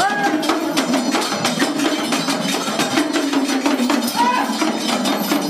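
Devotional folk music: fast, steady percussion strokes, several a second, with voices over it.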